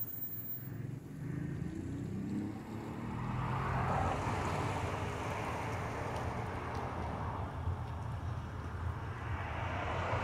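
Car driving slowly, with a steady low engine hum and road noise that swells about four seconds in and again near the end.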